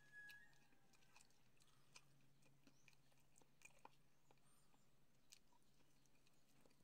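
Near silence with faint scattered small clicks: a banana being peeled by hand, then bitten into and chewed.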